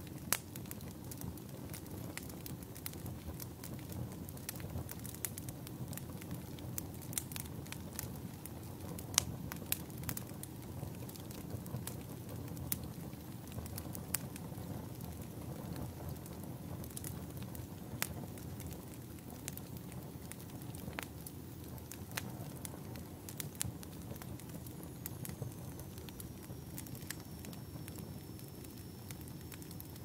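Wood fire crackling: a steady low rush of burning logs with irregular sharp pops and snaps scattered throughout.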